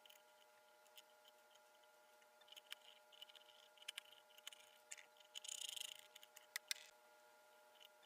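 Faint handling sounds of a folding pocket knife being assembled: scattered small clicks and taps as the blade, washers and pivot are worked into the titanium scales, getting busier after a couple of seconds, with a brief scratchy rustle a little past halfway.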